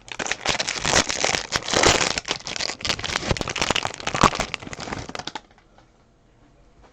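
Crinkling of a plastic trading-card pack wrapper being handled, dense and crackly for about five seconds, then it stops.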